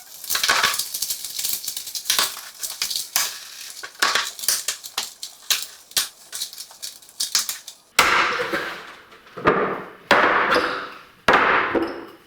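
Plastic Rubik's cubes being scrambled by hand: rapid runs of clicking and clacking as the layers are twisted, turning into denser rattling bursts in the last few seconds.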